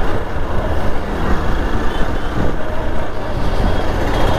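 Hero Xpulse 200 motorcycle on the move, its engine and road noise mixed with heavy wind rushing over the rider's microphone.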